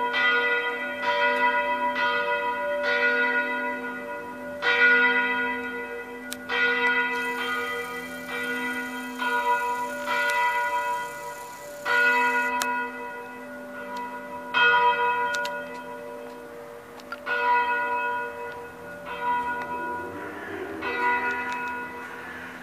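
Full peal of three electrically swung church bells, tuned D4, C4 and B3 (cast by Bizzozero 1764, Comerio 1858 and De Antoni 1975), striking in irregular interplay over a long hum. The strikes come further apart and grow fainter as the swinging slows, the sign of the peal winding down to its end.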